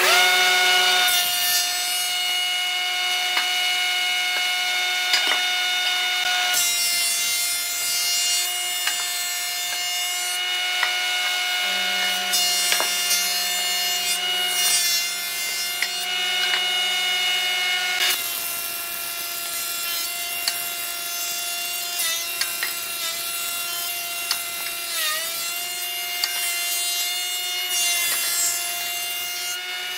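Combination jointer-thickness planer running with a steady high whine while its cutterhead planes a wooden board fed through it. The sound changes abruptly a few times, and in the last third the pitch sags briefly a couple of times.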